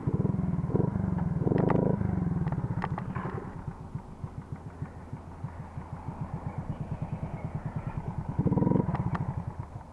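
Mobilete moped engine running while the moped is held up on its rear wheel in a wheelie, its separate exhaust pulses plainly heard. The throttle is opened briefly about a second and a half in and again near the end, and there are a few sharp clicks.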